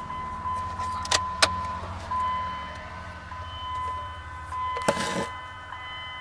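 A steady high electronic warning tone from the Dodge Dakota's dash, sounding with the ignition key switched on. Two sharp clicks come just after one second in, and a short rustling rush near five seconds.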